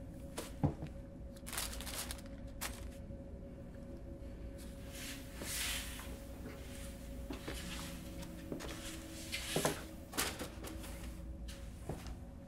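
Rummaging among cardboard boxes: scattered knocks, clicks and rustles, with the loudest knocks coming about ten seconds in, over a low steady drone.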